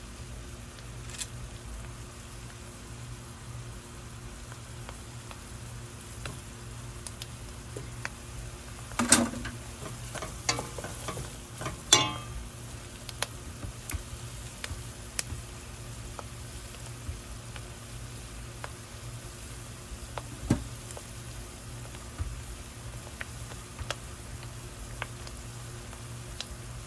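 Food sizzling steadily in a frying pan, with a utensil knocking and scraping against the pan as it is stirred; the loudest clatters come in two clusters about a third of the way in and just before halfway, and there is a single knock about three-quarters through.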